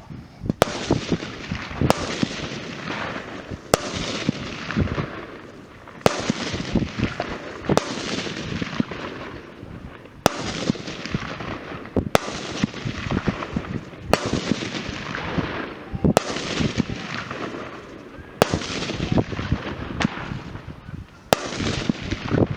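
Fireworks going off: a sharp bang about every two seconds, each followed by a dense crackle and hiss that fades away.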